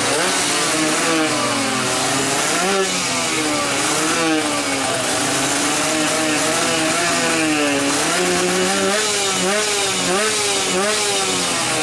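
Two-stroke 155cc drag-bike engine being revved over and over during tuning, its pitch climbing and falling with each blip of the throttle.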